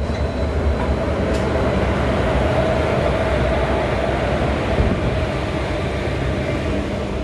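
Indian Railways WAP-4 electric locomotive and its coaches passing close alongside on the next track, with a steady rail running noise and a constant drone through it.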